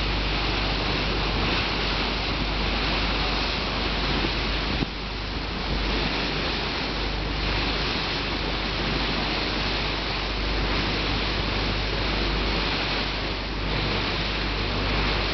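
Steady rushing of wind and water on a moving boat, with a low steady drone from the boat's engine underneath.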